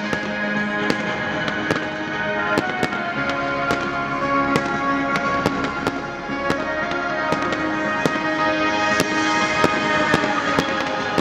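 Fireworks display: an irregular run of sharp bangs and crackles from bursting shells and rising comets, heard over music with long held notes.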